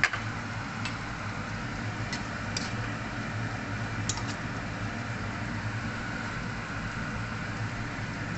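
Onion, garlic and oyster-soy sauce simmering in a wok over a gas stove: a steady low hum and hiss with a few faint pops and clicks.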